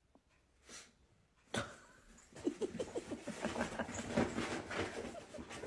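A puppy making a quick run of short, faint grunts and whimpers that begins about two and a half seconds in, after a near-silent start and a single click.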